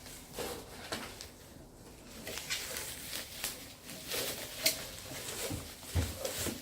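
Packaging rustling and crinkling as a box is rummaged through and unpacked, with irregular crackles and clicks and a couple of low knocks about six seconds in.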